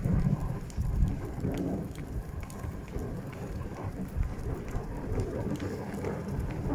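Reindeer-drawn wooden sleigh moving over packed snow: a steady low rumble and crackle from the runners, with scattered light clicks and crunches of the reindeer's hooves.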